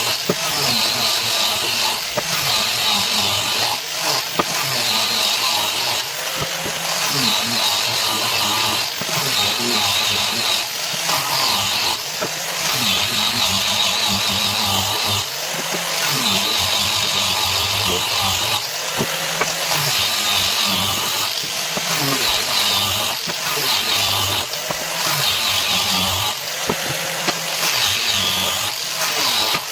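A power tool running continuously on wood, its sound swelling and easing every couple of seconds as it is worked in repeated passes.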